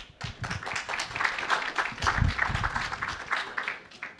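Audience applauding, the clapping thinning out and fading near the end.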